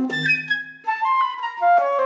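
A quartet of transverse flutes playing chamber music, several parts moving at once in quick note changes, with a short drop in level just under a second in before the playing picks up again.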